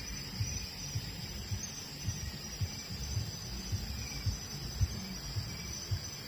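Irregular low thuds, two or three a second, from a cellphone being carried and handled while walking, over a steady high chorus of night insects.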